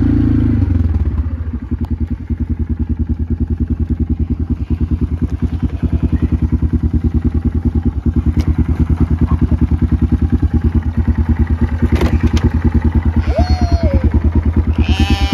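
Quad bike (ATV) engine dropping to idle about a second in, then idling with an even, rapid putter.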